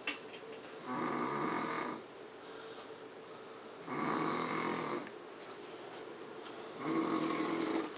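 A man snoring in his sleep: three snores about three seconds apart, each lasting about a second. A brief click at the very start.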